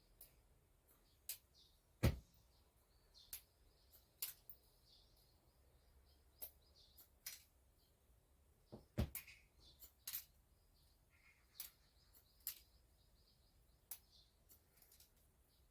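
Hairdressing scissors snipping hair: short sharp snips at irregular spacing, about one a second, two of them louder about 2 and 9 seconds in.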